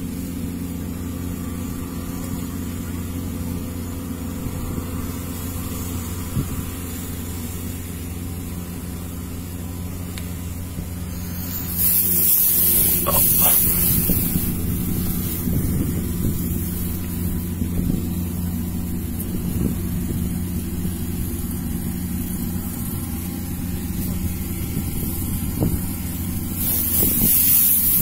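Kubota KAR97 combine harvester's diesel engine and machinery running with a steady hum while harvesting. About twelve seconds in it grows louder and a rushing hiss comes in, and the hiss comes again near the end.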